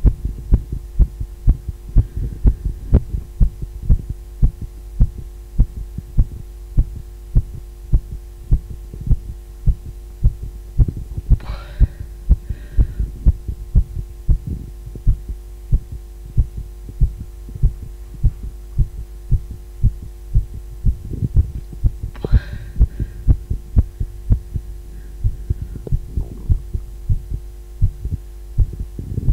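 A woman's heartbeat: steady, regular low double thumps over a constant hum.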